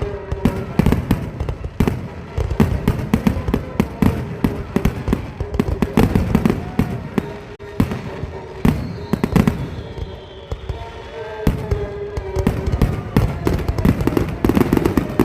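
Fireworks going off in a dense, irregular barrage: many sharp bangs and pops in quick succession, several a second.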